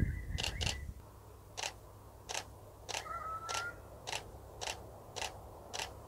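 Canon DSLR shutter clicking about ten times at uneven intervals as the light-triggered camera fires shot after shot.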